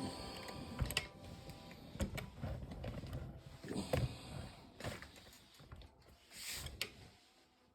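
Faint scattered clicks, taps and light scrapes of small parts and tools being handled, about half a dozen sharp knocks spread through, with a short hiss near the end.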